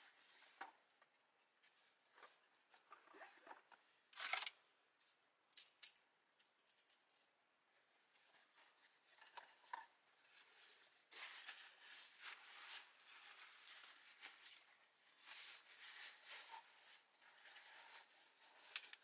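Faint handling noises: scattered clicks and scrapes, the loudest about four seconds in, then a longer run of scraping and rustling in the second half.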